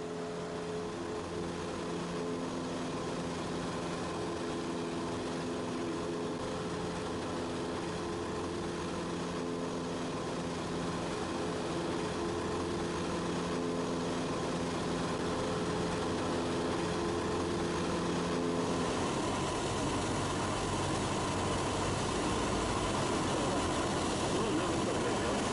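Light aircraft's propeller engine droning steadily in flight, heard from the cabin. About two-thirds of the way through, the drone gives way to a broader rushing noise.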